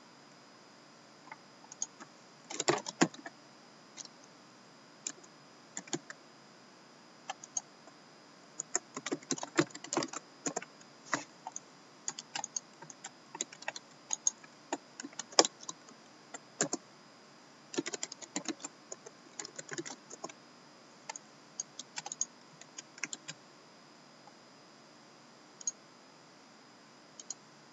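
Typing and key clicks on a laptop keyboard, in irregular runs of keystrokes separated by short pauses.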